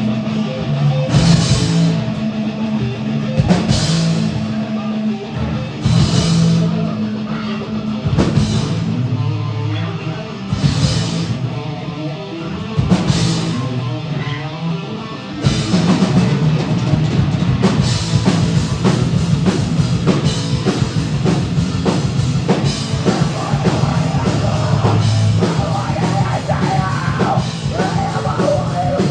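Live heavy metal band playing with distorted electric guitar, bass and drums, cymbal crashes landing about every two seconds. About halfway through the whole band comes in denser and busier.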